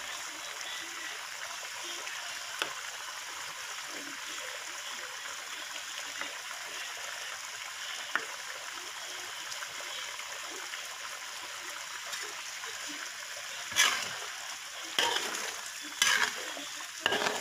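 Thick beef rendang sauce of coconut milk and spices bubbling in a wok: a steady sputtering hiss with small pops. Near the end a spatula scrapes against the wok four times as the rendang is stirred.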